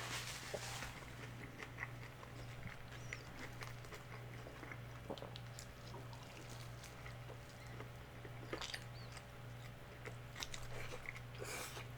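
Close-up chewing and biting of food, with small irregular wet clicks and crunches, as he eats crispy fried chicken flautas.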